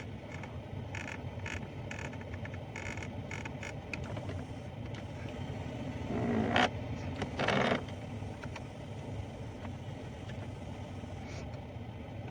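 Ford EcoSport AC air-direction (mode) control actuator making its abnormal noise as the vent mode is changed: a run of short clicks, then two louder half-second grinding noises about six and seven and a half seconds in, over a steady low hum.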